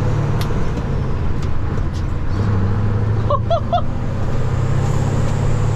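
Scania 530 V8 lorry engine pulling steadily, heard from the cab, easing briefly about two seconds in and then picking up again. A faint high turbo whistle comes in over the engine in the second half.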